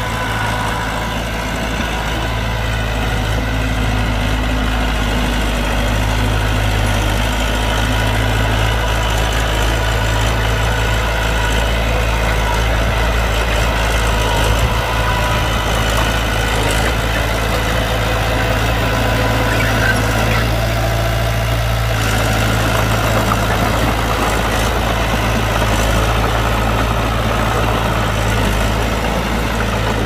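Heavy earthmoving machine's diesel engine running steadily at a low, idle-like speed: a constant deep rumble with no revving.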